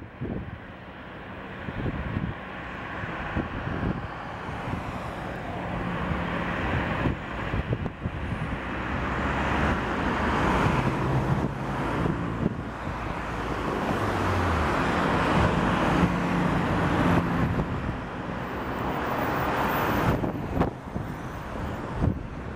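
Airbus A320 jet engines and airframe running with a steady rushing noise that grows gradually louder through most of the stretch, with a few low hums that shift in pitch.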